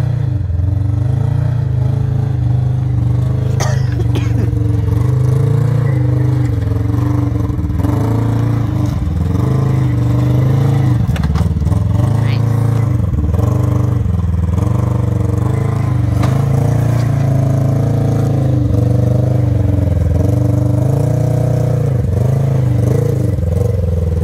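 Polaris RZR 1000 side-by-side's twin-cylinder engine running at low speed and being revved up and down over and over as it crawls over rocks, with a couple of sharp knocks.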